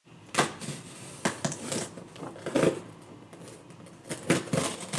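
Cardboard shipping box being opened by hand: crinkling, scraping and rustling of cardboard and packing, with several sharp snaps and taps.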